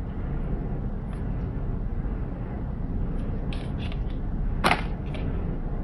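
Marbles rolling along a plastic marble run track, a steady low rumble, with a few sharp clicks of marbles striking the track; the loudest click comes near the end.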